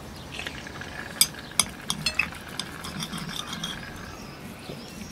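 Knife and fork scraping and clinking on plates as meat is cut, with a quick run of sharp clicks about a second in.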